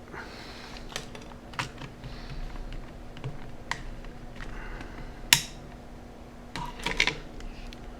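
Irregular light clicks and taps of small hard parts being handled on a workbench. The sharpest click comes about five seconds in, and a quick cluster follows near seven seconds.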